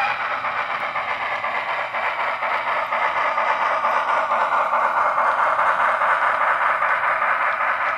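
Model LMS Beyer-Garratt's Loksound 5 decoder playing the Wheeltappers steam sound file through the model's small speaker: a rapid, even beat of exhaust chuffs with little bass, growing louder about two to three seconds in as the locomotive passes close.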